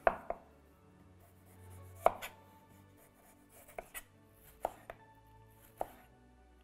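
Chef's knife knocking on a cutting board while trimming and peeling a kiwi: about eight sharp, irregularly spaced knocks, the loudest right at the start and about two seconds in, with a couple of quick double knocks later on.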